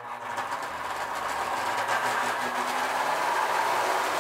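Lionel O-gauge toy train starting off and rolling along its track: a steady whirring rumble of the motor and the wheels on the steel rails that builds over the first couple of seconds, then holds.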